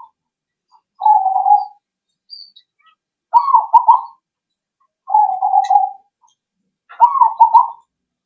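Zebra dove (perkutut) cooing: four phrases of its song about every two seconds, alternating a higher, wavering phrase with a lower, steadier one.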